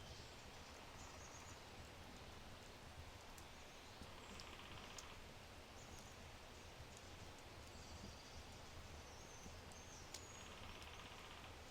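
Faint oak wood fire crackling with a few sharp pops, while birds give short high calls and two buzzy trills, about four seconds in and again near the end.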